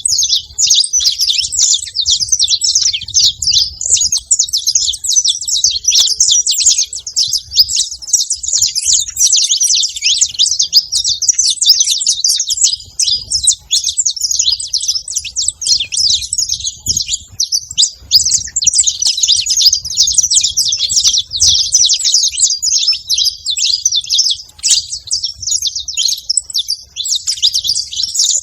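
Saffron finch chirping in a dense, rapid, unbroken stream of high-pitched chirps.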